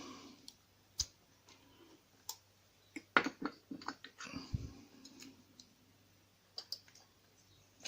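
Scattered small metal clicks and taps from a small CISA oval lock cylinder as a follower is pushed through it to take out the plug, which goes in tight. A dull knock comes about halfway through.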